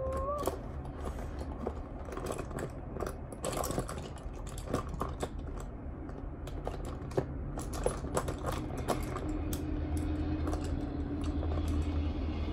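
Makeup products and containers clicking, knocking and rattling in irregular taps as someone rummages for an eyeshadow base. A faint steady low hum comes in about nine seconds in.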